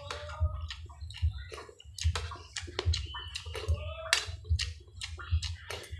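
Close-miked wet chewing and lip-smacking: a string of short, sharp mouth clicks while eating boiled pork leg and fried fish with rice by hand, over a low hum.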